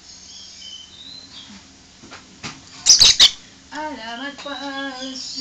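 Yellow lutino lovebird giving a few faint high chirps, then three loud, sharp squawks in quick succession about three seconds in. A person's voice follows near the end.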